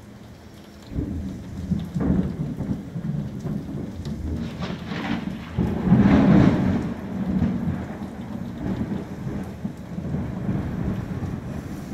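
Thunder rolling over steady rain: a low rumble breaks in about a second in, swells to its loudest peal about halfway through, then rumbles on.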